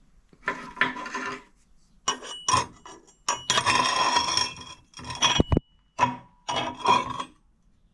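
Steel welding plate being handled and scraped against metal: a run of uneven scrapes and clinks, the longest about three seconds in, with the plate ringing after each.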